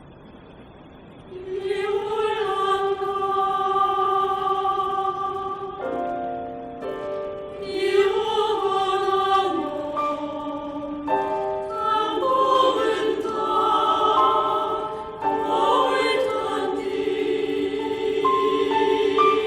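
Choir singing a Korean choral art song with piano accompaniment, the voices coming in about a second and a half in after a soft piano passage and holding long chords.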